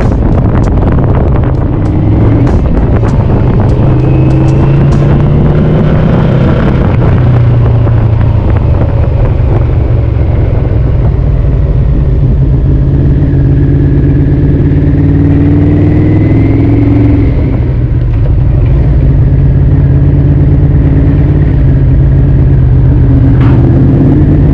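Yamaha VMAX 1200's V4 engine running under way, its pitch rising with the revs and then dropping, twice, as it pulls through the gears. A couple of sharp knocks come near the end.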